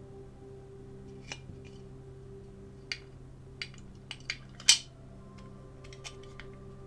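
A handful of small sharp clicks and taps as a black plastic interior is fitted and pressed into a Corgi diecast metal car body, the loudest about four and a half seconds in. Quiet background music runs underneath.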